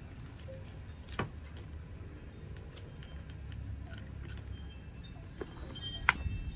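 Hands and a small hand tool working potting soil and coconut husk in a plastic pot: faint scraping and ticks, with two sharp clicks against the pot, one about a second in and a louder one near the end, over a low rumble.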